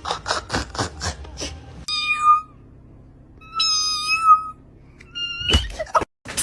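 A cat meowing: three held, steady-pitched meows, the middle one the longest, after a run of quick, even clicks. A loud thump comes right after the last meow.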